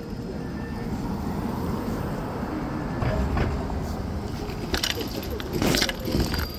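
Wind rumbling on a phone microphone with street noise during a bicycle ride, joined near the end by loud crackling as the nylon of a puffer jacket rubs against the microphone.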